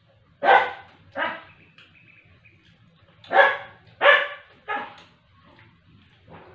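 A dog barking: two sharp barks, then a pause of about two seconds, then three more in quick succession.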